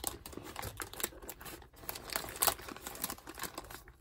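Scissors snipping through a plastic mailer bag while the plastic crinkles in the hands, an irregular run of snips and rustles, the sharpest about two and a half seconds in.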